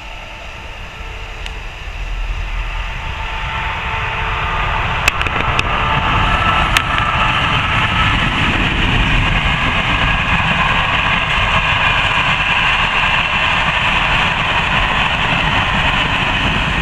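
Passenger train passing, its rumble and wheel-on-rail noise swelling over the first several seconds and then holding steady, with a few faint clicks about five to seven seconds in.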